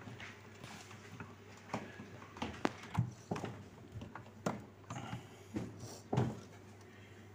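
Plastic clicks and knocks as a replacement refrigerator freezer compartment door is handled and worked into its hinge holes. The taps come irregularly, a couple a second, and the loudest knock falls near the end.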